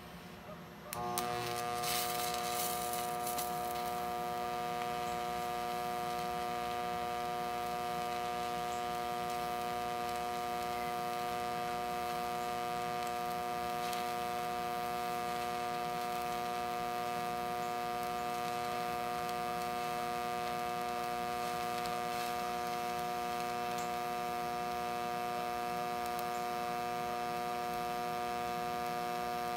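Hobart TIG welder striking an arc about a second in with a brief crackle, then the arc buzzing steadily with an even electrical hum.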